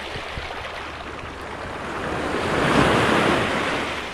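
Small wave surging up the beach and washing around the feet, swelling to a peak about three seconds in, then fading. Wind rumbles on the microphone throughout.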